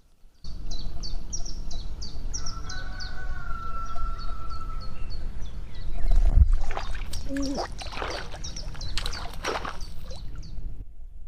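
A small bird singing quick high chirps, several a second, in two spells, over a steady low rumble of wind on the microphone. From about six to ten seconds in, a run of irregular knocks and rustles joins in.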